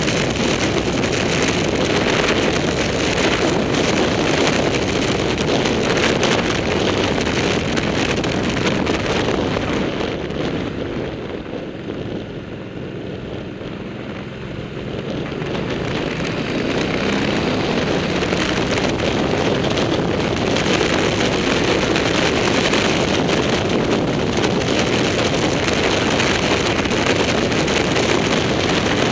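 Wind rushing over the microphone of a camera mounted on a moving motorcycle, with the motorcycle's engine running underneath. The rush eases for a few seconds in the middle as the bike slows through a hairpin bend, then builds again as it speeds up.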